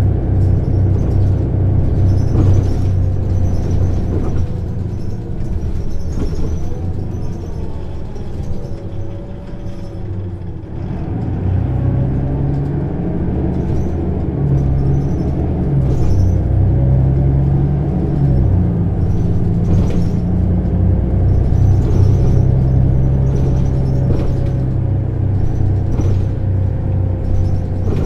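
Mercedes-Benz O 530 Citaro bus's diesel engine and ZF automatic gearbox while driving. The engine eases off for several seconds, then pulls hard again from about eleven seconds in, its note rising and stepping as the gearbox shifts.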